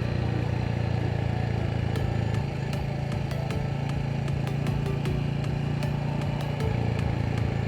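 Motorcycle engine running steadily while riding, with a scatter of light clicks from about two seconds in.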